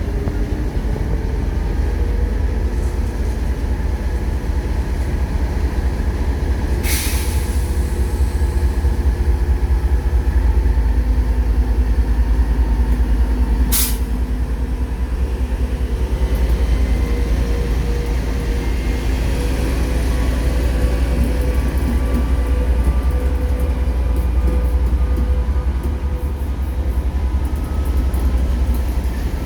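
Pair of TEP70 diesel locomotives, each with a V16 diesel, running under load as they pull a passenger train away: a steady, deep engine rumble whose tones creep upward in the second half. Two short, sharp cracks cut through, about a quarter and about halfway through.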